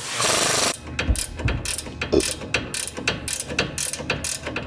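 Pneumatic air ratchet running in a short burst on a bolt, then a steady run of ratchet clicks, about five a second.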